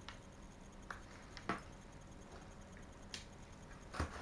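Hands working open a taped cardboard box: a handful of short, sharp taps and scrapes on the cardboard, scattered through a faint background, the loudest about a second and a half in and again near the end.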